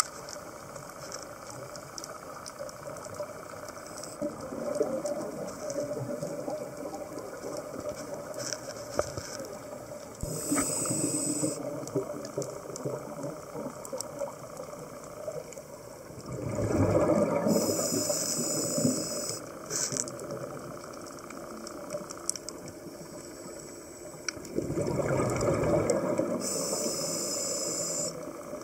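Scuba diver breathing through a regulator underwater: three breaths of exhaled bubbles gurgling over a steady low hiss, the last two the loudest.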